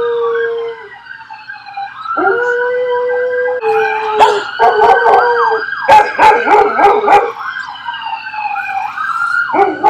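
An emergency vehicle's siren wailing, slowly rising and falling, with dogs howling along; between about four and seven seconds in, the dogs break into a burst of sharp yelps.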